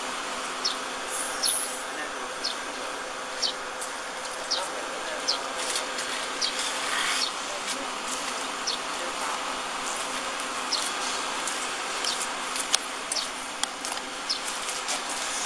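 Portable CNC plasma cutting machine running: a steady buzzing hiss with a faint hum underneath, and short high chirps roughly once a second.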